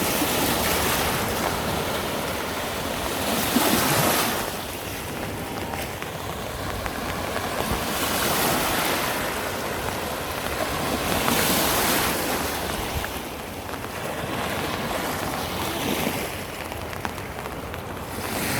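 Rushing river water, a steady wash that swells and eases every few seconds.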